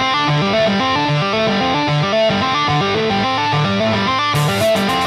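Background guitar music with a repeating picked note pattern; crisp, ticking high beats join about four seconds in.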